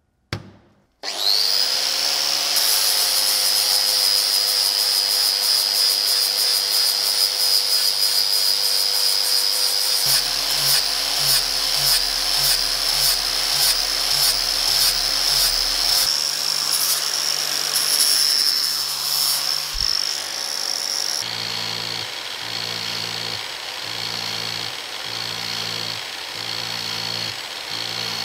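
Brief clank, then an angle grinder spins up about a second in and runs with a steady high whine as its disc grinds the steel head of a forged rounding hammer. In the last several seconds the sound turns a little quieter with a regular low pulsing.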